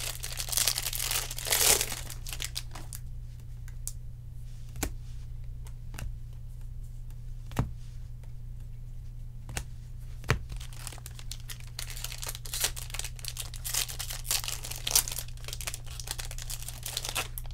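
Foil wrapper of a baseball-card pack torn open and crinkled for the first couple of seconds, then a handful of sharp clicks as stiff cards are flicked and set down, and more rustling and crinkling of cards and wrapper through the second half. A steady low hum runs underneath.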